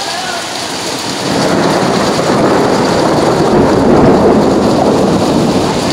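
Steady rain falling on wet pavement, with a long roll of thunder that swells in about a second in and rumbles on under the rain, loudest around the middle.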